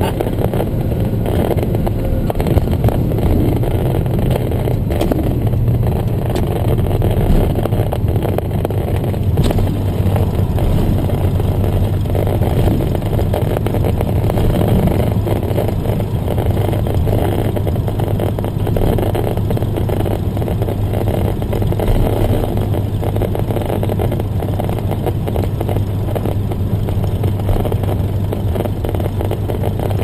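Cessna 175's propeller engine running at a steady speed as the plane rolls along the ground, heard from inside the cockpit.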